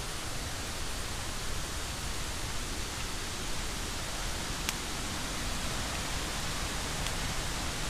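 Steady rushing of a waterfall, an even hiss with no rises or breaks. A single faint tick a little past halfway.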